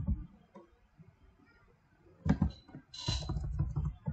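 A few computer keyboard clicks over quiet room tone as code is being edited: a sharp click a little over two seconds in, then a short noisy burst about three seconds in.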